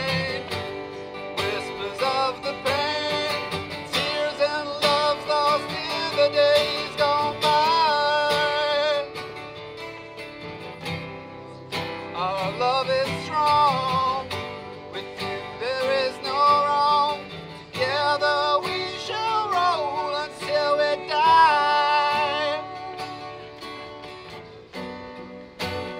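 Two acoustic guitars strummed together while a man sings a slow ballad, his held notes wavering. The singing drops back briefly twice.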